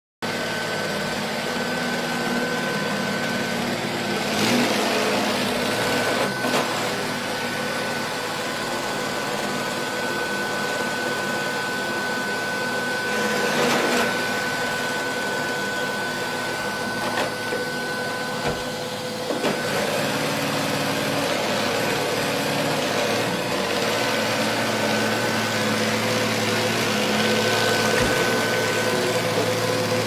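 Neato Botvac D7 robot vacuum running across a rug: a steady whir of its suction motor and brushes with a constant whine, and a few brief knocks along the way.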